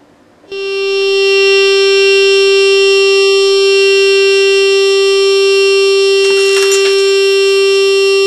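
A loudspeaker driven by a small amplifier board blares a loud, steady buzzing tone, starting about half a second in. About six seconds in, a drinking glass in front of it shatters with a brief high crackle of breaking glass over the tone.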